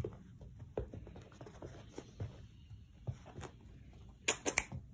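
A brindle puppy scuffling and mouthing at a hand on a carpet: soft, scattered pattering. A quick run of sharp clicks comes near the end.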